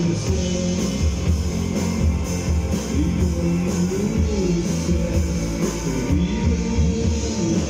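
Live rock band playing electric guitars and drum kit through a stage PA.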